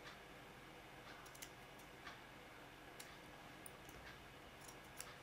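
Near silence with a few faint, scattered clicks of tailor's scissors snipping excess fabric from a neckline edge.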